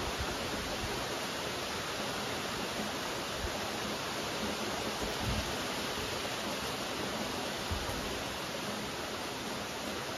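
Steady rainfall, an even hiss of falling drops, with a few brief low thumps.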